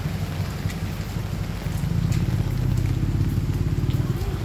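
Rainy street ambience: a steady low rumble under a light patter of rain.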